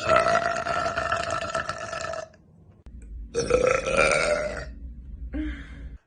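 A person burping three times: a long, steady-pitched burp of about two seconds, a second long burp about a second later, and a short, quieter one near the end.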